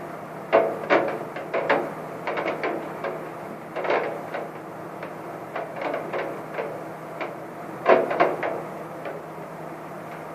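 Scattered raindrops knocking on a window, irregular taps in uneven clusters of a few a second, with the sharpest knocks about half a second in and near eight seconds, over a faint steady hum.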